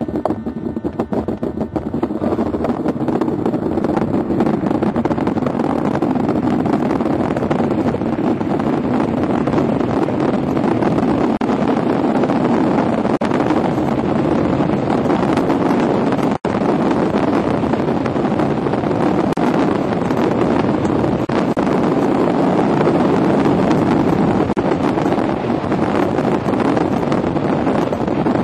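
A luge sled's steel runners scraping over the ice of the track at speed, with wind rushing over the sled-mounted microphone: a loud, steady rush that cuts out for an instant about halfway through.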